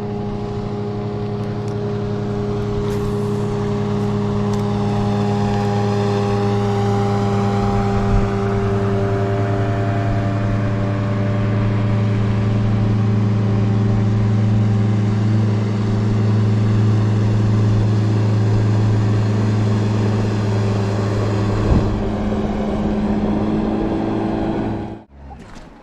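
An engine running steadily at a nearly constant speed, a continuous drone with a slight drift in pitch, which cuts off abruptly near the end.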